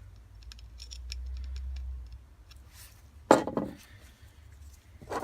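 Small plastic and metal parts of a car key fob being handled: light clicks and taps, then one louder sharp knock with a brief rattle about three seconds in, and another click near the end.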